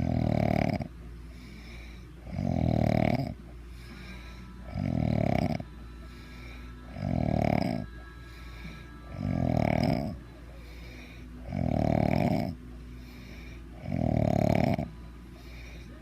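Heavy snoring in a steady rhythm: seven loud, deep, buzzing snores, each under a second long, about every two and a half seconds, with quieter breaths between them.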